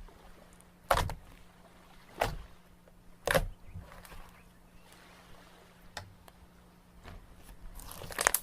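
Slime being handled: three short, sharp sounds about a second apart in the first half, then quieter handling, and a cluster of sounds near the end.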